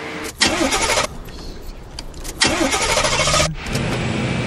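Concorde's Rolls-Royce Olympus jet engines starting up: two loud bursts of rushing noise about a second long each, then a steady lower rumble from about three and a half seconds in.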